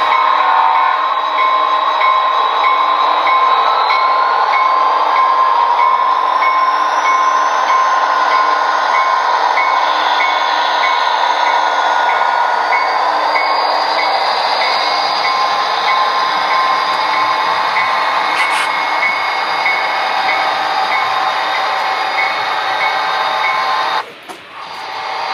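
Sound decoders in HO scale model diesel locomotives, an Athearn DDA40X with a Tsunami decoder and an SD40-2 with an Econami decoder, playing EMD diesel engine sound through their small speakers as the train runs past. The sound is a steady drone with a regular ticking and a whine that rises in pitch a few seconds in. It drops out briefly near the end.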